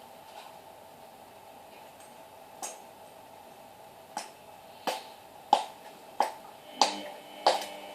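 Samsung EcoBubble washing machine running on its final spin cycle with a steady hum. Sharp knocks come at first irregularly, then about every two-thirds of a second in the second half, at a slow tumbling pace rather than full spin speed.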